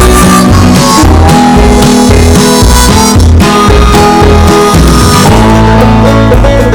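Background music: an instrumental tune with a steady beat and held melody notes.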